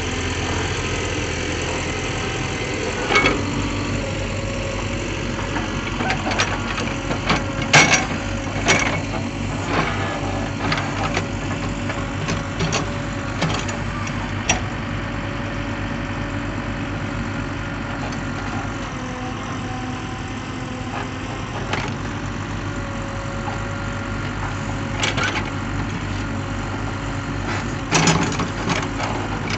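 Mahindra EarthMaster backhoe loader's diesel engine running steadily while the backhoe arm digs a trench, with scattered sharp knocks and clanks from the arm and bucket, loudest about eight seconds in and again near the end.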